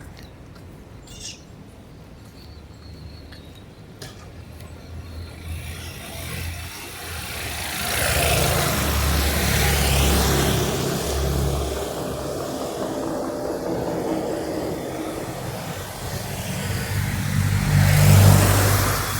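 Road vehicles driving past: a low engine hum and tyre noise swell and fade about eight seconds in, and a second vehicle passes, louder, near the end.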